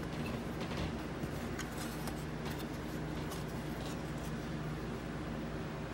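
Small side cutters clicking and scraping against a circuit board, a handful of light ticks, over a steady low electrical hum.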